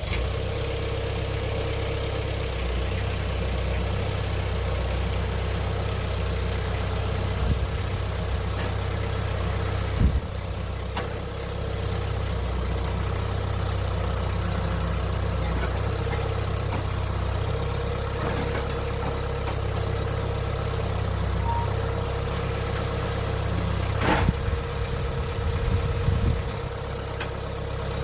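McCormick X1.45 tractor engine running steadily at idle just after starting. A few sharp knocks come through, one about a third of the way in and a few more near the end.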